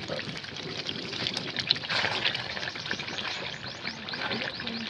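Nishasta halwa mixture bubbling in hot oil in an iron karahi, a steady bubbling full of small irregular pops, with a wooden spatula stirring through it.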